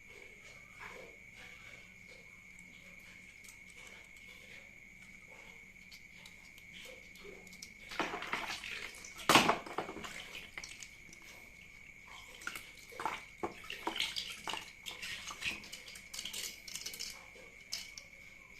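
Plastic toy trucks being washed by hand in water: scattered splashes, drips and small plastic knocks. A burst of splashing comes about halfway through with one sharp loud knock, then more busy handling and splashing. A steady high whine sits underneath throughout.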